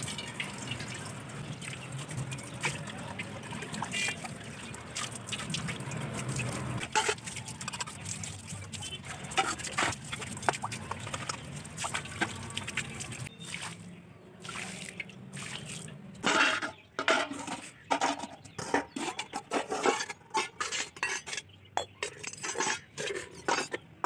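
Tap water running and splashing onto stainless steel bowls as they are rinsed by hand. In the second half come a quick, uneven run of splashes and light metal knocks.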